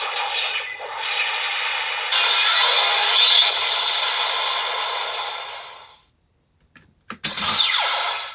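Electronic finishing-move sound effect from a DX Kamen Rider Zero-One toy belt, played through its small speaker and fading out about six seconds in. Then a few sharp plastic clicks and a short falling electronic sweep as the toy is handled.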